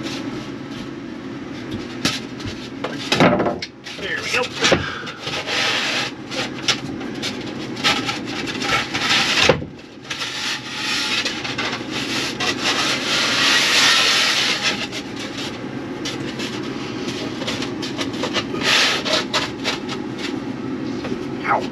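Rigid foam insulation board being handled and pushed into a wooden frame: foam rubbing and scraping against the wood with scattered knocks and thumps, and a longer stretch of rubbing about halfway through as the board is worked into place.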